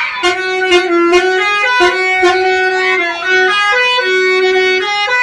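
Basuri musical vehicle horn playing a lively melody in held notes that step up and down, with a sharp beat under it.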